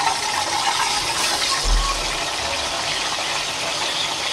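Marinated quail pieces sizzling steadily in hot oil in a kadai, half-cooked with one side browned; the strong sizzle means they are not done yet, since it dies down only once the quail is cooked through.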